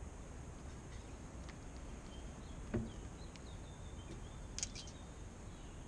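Quiet outdoor background with faint bird chirps, one sharp knock about three seconds in, and a few light clicks near the end.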